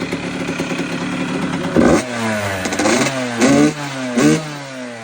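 Two-stroke motorcycle engine running, then blipped three times, about two, three and a half and four seconds in, its pitch falling away after each rev.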